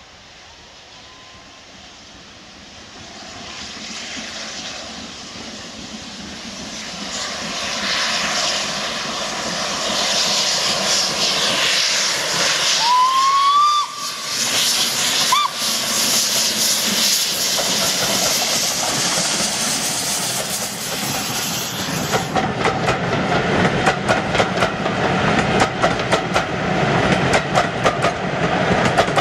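A three-cylinder LNER K4 2-6-0 steam locomotive working a passenger train and approaching, its steam exhaust growing steadily louder as it draws near. About halfway through it gives a short rising whistle. In the last seconds the coaches run past with a fast clickety-clack of wheels over the rail joints.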